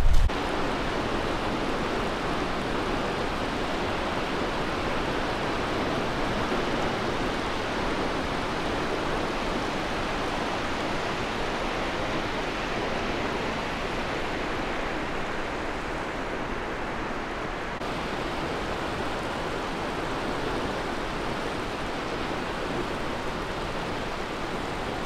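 Waterfall rushing steadily: a continuous, even wash of falling water.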